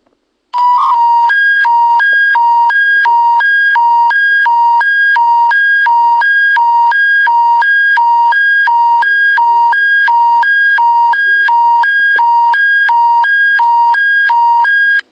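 Alberta Emergency Public Warning System alert tone: a loud electronic two-tone warble that switches rapidly back and forth between a lower and a higher pitch. It starts about half a second in and cuts off just before the end, announcing an emergency bulletin to follow.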